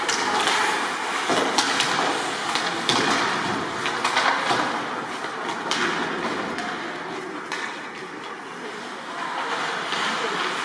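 Ice hockey play on the rink: skate blades scraping and carving on the ice, with scattered sharp clacks of sticks and puck.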